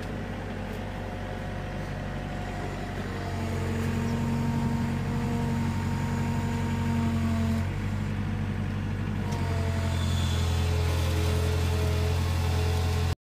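Mini excavator's diesel engine running steadily under hydraulic load, with a faint hydraulic whine. It works harder about three seconds in, eases off for a moment near eight seconds, and picks up again soon after as the machine crawls its tracks and bucket over a low wall.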